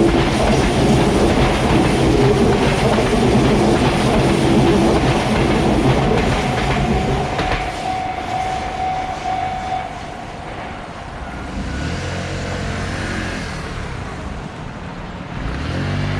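Sotetsu Main Line electric train passing close by, its wheels and running gear loud for the first seven seconds or so before it eases off. After that a steady tone holds for a couple of seconds, and near the end the traction motor gives a rising whine twice.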